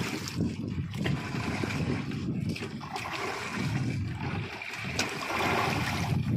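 Sea water sloshing and splashing against the side of a small wooden fishing boat, with wind buffeting the microphone and a few brief sharp splashes or knocks.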